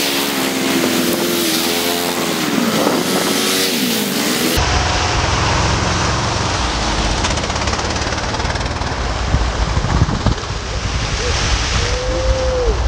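ATV engines running and revving as the quad bikes ford a shallow river, with water splashing from the tyres. About four and a half seconds in, the sound changes abruptly to a deeper, rougher engine rumble.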